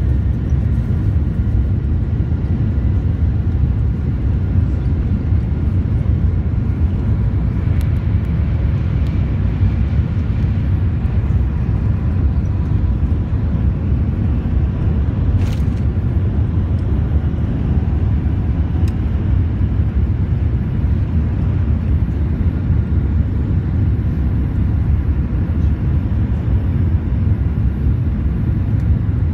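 Cabin noise of a Boeing 787 on its takeoff roll and climb-out: a steady, loud low rumble from its Rolls-Royce Trent 1000 engines at takeoff thrust, with a faint steady whine above it. A single sharp click sounds about halfway through.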